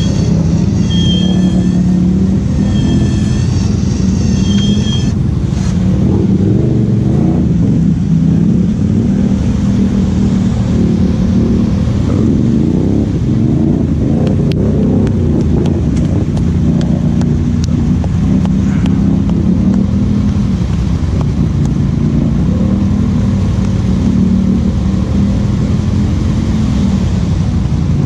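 ATV engines running steadily at idle and low revs close by, the pitch drifting a little up and down.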